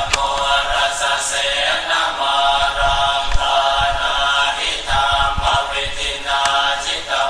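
A toddler's high voice chanting a sing-song tune, phrase after phrase with short breaks between them.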